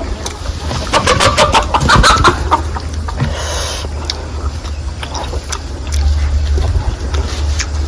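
Chickens clucking, with a cluster of sharp clicks about a second in and a steady low rumble underneath.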